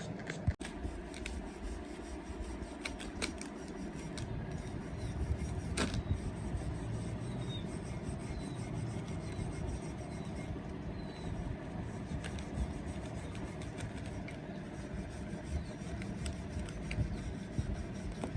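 A machine motor running steadily, getting louder about four seconds in, with scattered sharp metallic clicks and knocks.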